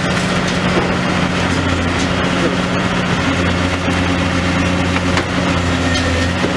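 Demolition excavator's diesel engine running at a steady pace, a continuous low hum with a noisy wash over it.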